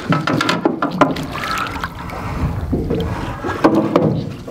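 Water splashing as a landing net scoops a hooked snapper up beside an aluminium boat, with a few sharp knocks against the boat's side.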